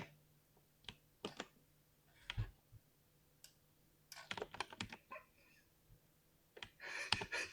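Mechanical keyboard with lubed switches being typed on. Scattered single keystrokes come first, then a quick run of keys about four seconds in, and a dense burst of typing near the end.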